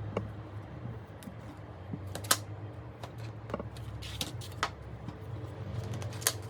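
Scattered sharp clicks and taps of small tools and phone parts being handled, the loudest about two seconds in, over a low steady hum.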